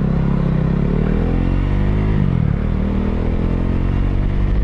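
Motorcycle engine accelerating. Its pitch climbs for about two seconds, drops at a gear change, then climbs again.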